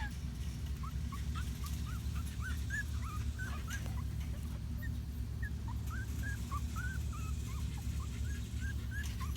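Patterdale Terrier puppies whimpering and squeaking, many short high-pitched rising and falling squeaks several times a second, over a steady low hum.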